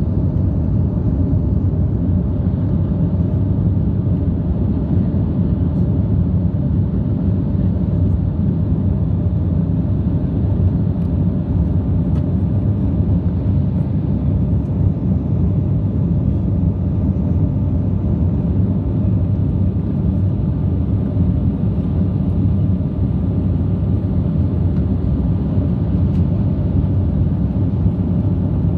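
Airliner's jet engines heard inside the passenger cabin during the climb after takeoff: a loud, steady low rumble with a few faint steady tones above it.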